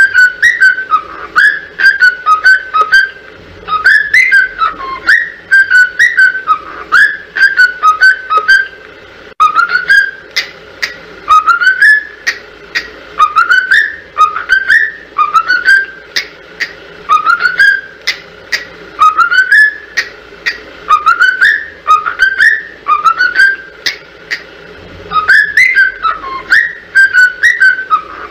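A whistled tune of short sliding phrases repeated over and over. About nine seconds in it changes to a phrase of quick upward slides repeating roughly once a second, and near the end it returns to the first phrase.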